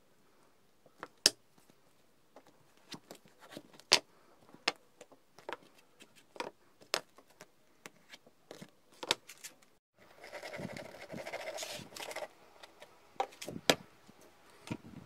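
Thin plywood parts clicking and knocking against each other and the wooden board as they are handled and fitted together by hand, in scattered sharp knocks. About ten seconds in there are a couple of seconds of continuous rubbing noise, then a few more knocks.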